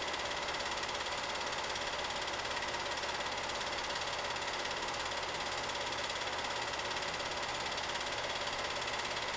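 8mm film projector running: a steady mechanical whir with a rapid, even clatter from the film-advance mechanism, over a constant hum.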